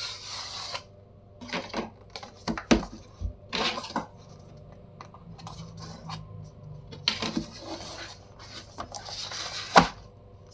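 A cardboard box being cut open with a utility knife: short scraping strokes of the blade across the seal, mixed with sharp clicks and rustles of the cardboard being handled, and the lid lifted near the end.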